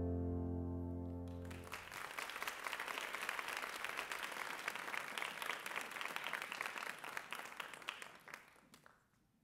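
A closing piano chord rings and fades over the first couple of seconds, then an audience applauds, the clapping dying away near the end.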